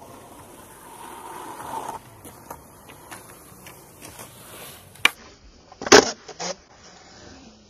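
Skateboard wheels rolling on concrete with a few small clicks, then a sharp clack about five seconds in and a louder clatter about a second later as the board strikes the lip of a concrete bank, followed by a couple of smaller knocks.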